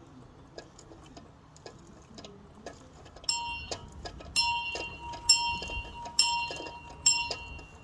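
A bell chimed by its rope: the clapper strikes five times, about a second apart, each strike a high ringing tone that rings on into the next. Faint light clicks come before the first strike.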